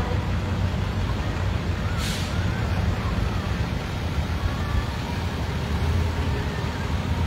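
Tow trucks in a slow procession driving past, a steady low engine rumble, with a brief air-brake hiss about two seconds in.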